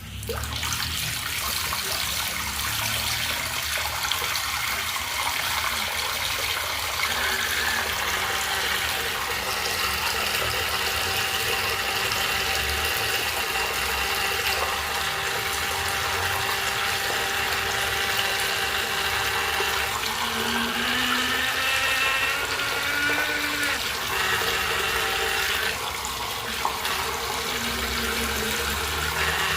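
Water running hard from a Celite sink faucet, starting abruptly. Over the rush of water the tap gives a steady whistling tone with several pitches, which wavers and glides for a few seconds about two-thirds of the way through. It is a noisy faucet, making a lot of noise.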